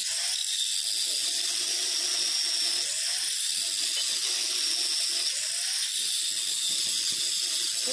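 Handheld angle grinder grinding steel on a tractor's front axle bracket, a steady high whine with the hiss of the disc biting the metal. It is grinding down the spot to be welded on a broken part.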